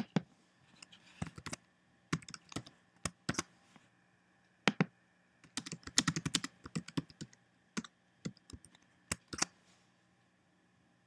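Typing on a computer keyboard: irregular bursts of quick keystrokes with short pauses between them, stopping about nine and a half seconds in.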